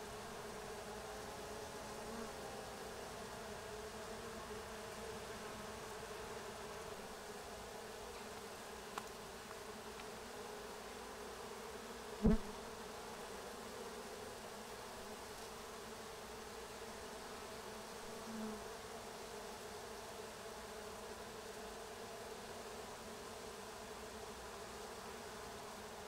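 Honeybee colony buzzing steadily at a crowded hive entrance, bees pouring out onto the landing board, which the beekeeper puts down to too much smoke. A single sharp knock about halfway through.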